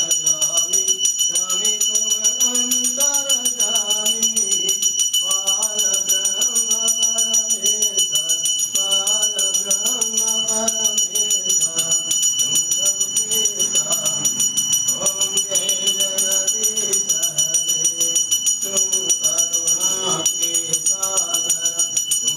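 Devotional singing with music, over a continuous high ringing with a rapid, even beat, like a temple bell rung without pause.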